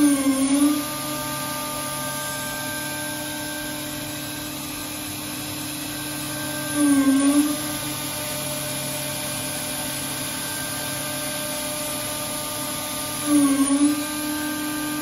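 HOMAG BOF 311 Venture 15L CNC machining centre's spindle running with a steady whine, with three short, louder bursts about six seconds apart, each about a second long, during which the whine dips briefly in pitch and comes back up.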